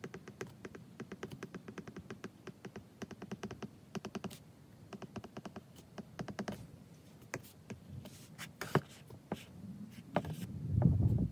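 Apple Pencil tip tapping and ticking on an iPad's glass screen during handwriting: a quick run of small clicks that thins out to scattered taps after about seven seconds. Near the end a louder low rumble rises briefly.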